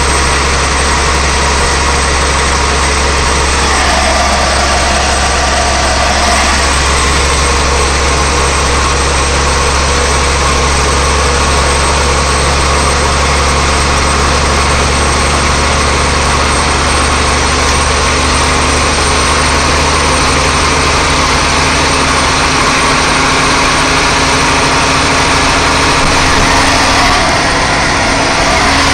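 Truck engine and tyre noise at road speed: a loud, steady, low drone with a wash of road rumble.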